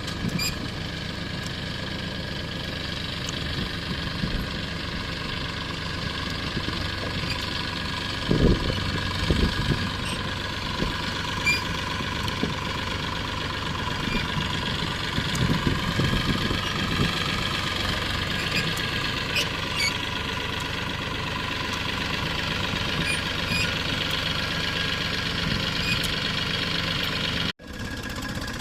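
Massey Ferguson 245 tractor's diesel engine running steadily, with a few low thumps. The sound cuts out abruptly for an instant about a second before the end.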